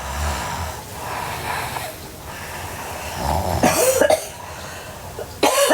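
A sleeping girl snoring and breathing noisily: a low snore at the start and breathy exhales, then two loud, sharp bursts of breath, one a little past the middle and one near the end.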